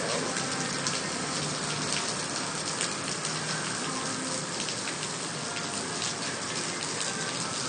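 Heavy rain pouring down steadily, a dense hiss with the patter of drops hitting the ground and surfaces.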